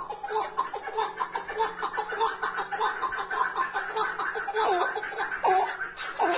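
Chukar partridge calling: a long, rapid run of short clucking notes, about four or five a second, breaking into a few drawn-out falling notes near the end; the bird has a deep call.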